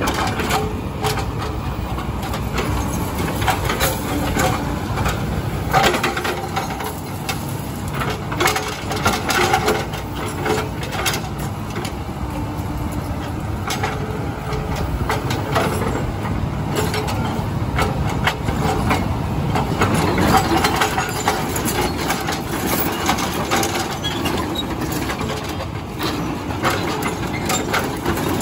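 Hydraulic breaker on a tracked excavator hammering its chisel into a concrete road slab: a continuous run of sharp blows and cracking concrete over the steady running of the excavator's diesel engine.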